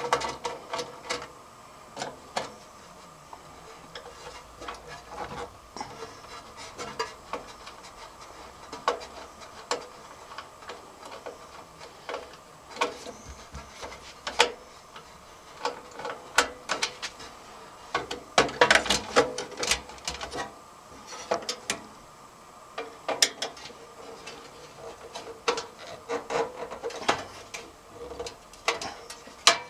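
Irregular clicks, taps and scrapes of hands working on a motherboard inside a sheet-metal desktop computer case, with a quick run of clicks a little past the middle, over a faint steady hum.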